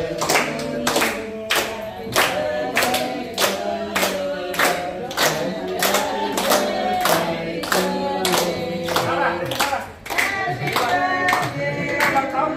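A group of men and women singing a birthday song together, clapping in time at about two claps a second, with a brief break about ten seconds in.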